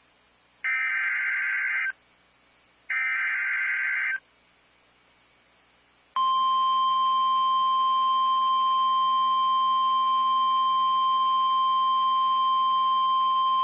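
Emergency Alert System SAME header data bursts: two harsh, buzzy digital bursts of about a second each, a second apart. About six seconds in, the NOAA Weather Radio warning alarm tone starts, a loud, steady single 1050 Hz tone that signals a warning message is about to be read.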